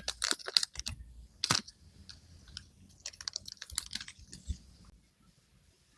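Rapid clicks and crinkles of the Xiaomi Band 9 box and its packaging being handled and unpacked, busiest in the first four seconds or so and then trailing off.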